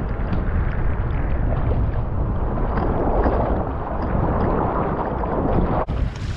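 Sea water rushing and splashing around a kayak moving through choppy surf, with wind buffeting the action camera's microphone. Near the end the sound cuts off abruptly and switches to a brighter, hissier take.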